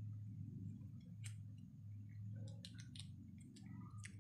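Light clicks of small metal parts of a gas stove's burner valve and ignition assembly being handled and fitted together by hand: a single click about a second in, a quick run of clicks near the middle, and another near the end, over a low steady hum.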